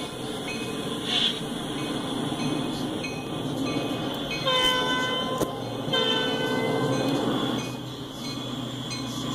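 A Norfolk Southern freight locomotive's air horn sounds two chords, a short blast about four and a half seconds in and a longer one about six seconds in. Under them runs the steady rumble of the approaching train.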